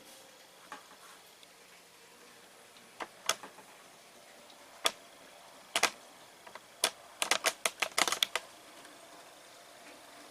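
OO gauge model train running on the layout's track: irregular sharp clicks of the wheels passing over rail joints, with a quick run of clicks late on as the loco and coach cross a stretch of joints together.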